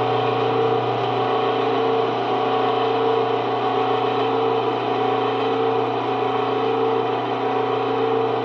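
Cue lathe motor running steadily, spinning a pool cue: a continuous machine hum with several held tones and a hiss of friction as a hand works against the turning cue.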